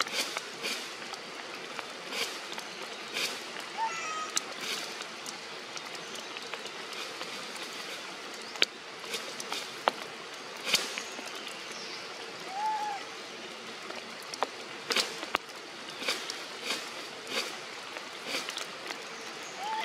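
Rain falling on forest foliage: a steady hiss with irregular drips and patters on leaves and branches. A few brief rising-and-falling calls sound through it, one about four seconds in, another past the middle and one at the very end.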